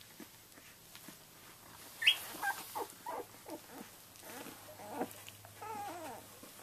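Twelve-day-old Samoyed puppies squeaking and whimpering: a sharp high rising squeak about two seconds in, then a run of short squeaks and a wavering whine near the end.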